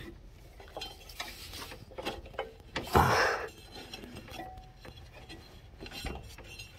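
Light metallic clinks and rubbing from hands working the deck belt onto a riding lawn mower's pulley, with one louder knock about three seconds in.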